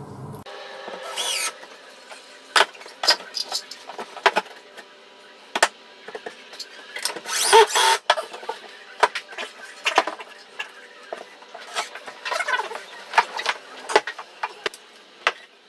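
Knocks and taps of a wooden board being handled and fitted, with short bursts of a cordless drill-driver driving screws into the timber, three times.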